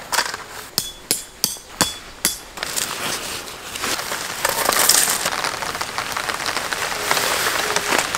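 A nylon rain poncho crackling as it is pulled on and the hood put up, a quick run of sharp snaps and crinkles in the first couple of seconds. Then a steady rustling hiss as the canvas tarp and its pole are handled and dragged over gravel.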